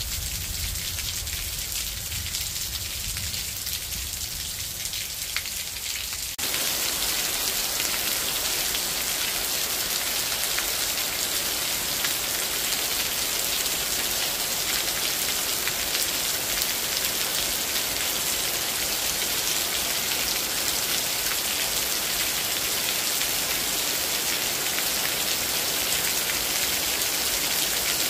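Steady rain falling on trees, grass and wet ground. About six seconds in, it changes abruptly to a louder, fuller rain.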